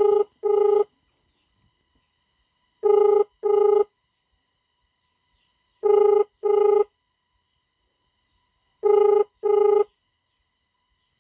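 Mobile phone ringback tone heard through the phone's speaker: a double ring repeating every three seconds, four times, as the outgoing call rings unanswered.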